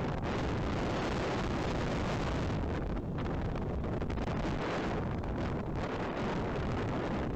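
Storm wind gusting hard against the nest camera's microphone, a long steady rush of noise lasting several seconds.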